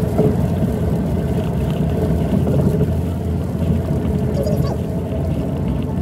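Steady, loud low rumbling noise with no clear strokes or rhythm.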